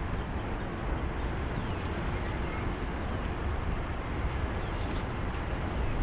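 Wind buffeting the camera's microphone: a steady low rumble and hiss with no clear separate events.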